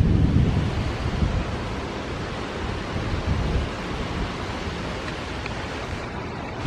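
Strong thunderstorm wind rushing steadily, with heavy low buffeting on the microphone that eases over the first second or two.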